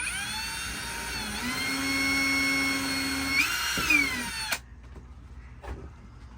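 Power drill motor whining as a screw hole is drilled into the boat's salon wood paneling. It spins up, dips briefly about a second in, runs steady, speeds up near the end and then stops abruptly about four and a half seconds in.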